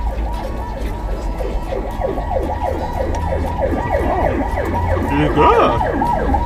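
A siren yelping, with quick rising and falling sweeps about three times a second, over a steady low hum.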